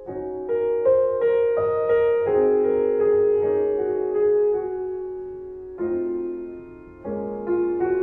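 Piano music: notes struck one after another that ring on into held chords. It dies down briefly near the end before new chords are struck.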